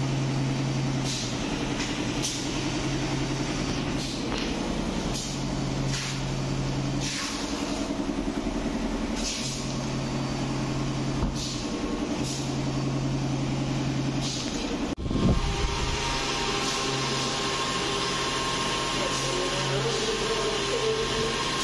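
Workshop machinery noise: a motor hum that starts and stops every few seconds, with scattered clicks and knocks and a single sudden thump about fifteen seconds in.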